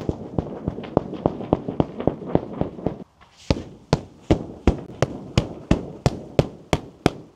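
Water dripping steadily onto taut tent or tarp fabric: sharp taps about three times a second. A rushing hiss of rain runs under them for the first few seconds, and they break off briefly about three seconds in before going on louder.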